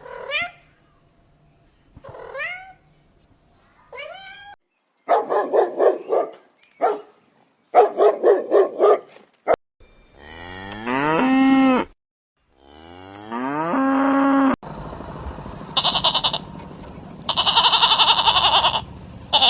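A run of recorded animal calls: three short meows from a cat, two bursts of rapid dog barking, then two long calls, each sliding down to a low held note. A long buzzy, rasping stretch with a break in the middle closes the run.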